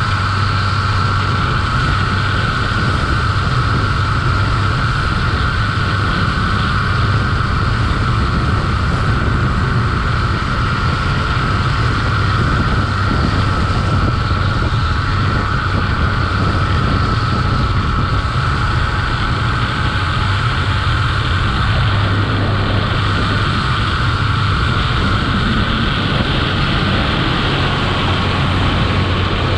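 Zip-line trolley running fast along its steel cable: a steady whine from the pulley wheels over heavy wind rumble on the microphone.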